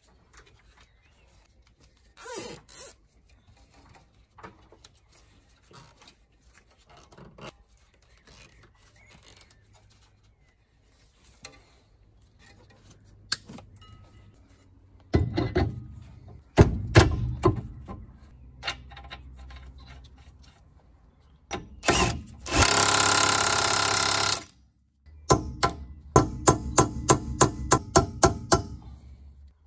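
Hand-tool work on a car's rear wheel hub: scattered clicks and knocks, a loud metallic clatter about halfway through, and a steady sound lasting about two seconds. Near the end comes a regular run of ratchet clicks, about four a second, as the rear hub nut is tightened.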